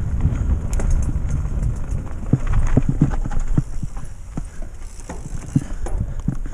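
Mountain bike ridden over rough forest dirt track: a low wind rumble on the microphone at first, then from about two seconds in, irregular knocks and rattles from the bike, several a second, as the tyres hit bumps and roots.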